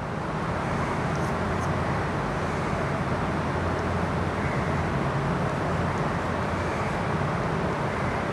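Steady rushing background noise with a faint low hum, even and unbroken.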